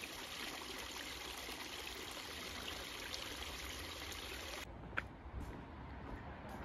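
Water pouring from nine metal dragon-head spouts into a stone fountain basin, a steady splashing rush. About two-thirds of the way through it cuts off to quieter open-air sound with a few light clicks.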